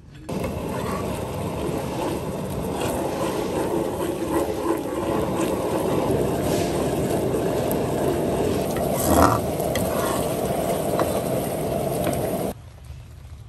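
Thick sauce bubbling and sizzling in a hot nonstick pan as it is stirred with a metal ladle, with small clicks and one louder scrape of the ladle about nine seconds in. The sound cuts off suddenly near the end.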